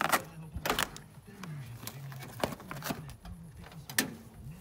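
LIAZ truck cab door being unlatched and swung open: a series of sharp clicks and knocks from the handle and latch, over a low hum that wavers in pitch.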